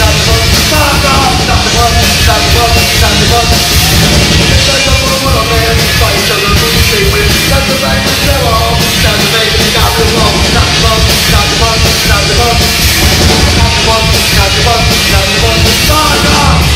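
A live rock band playing loudly.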